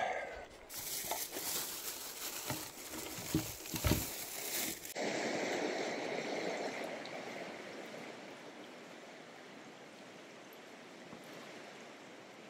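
Flowing river water, a steady rushing hiss that slowly fades, starting after an abrupt change about five seconds in. Before it comes a rougher rustling noise with a few thumps.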